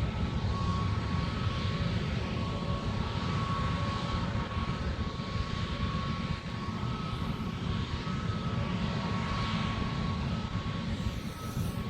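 Airliner engines running: a steady roar with a steady high whine over it.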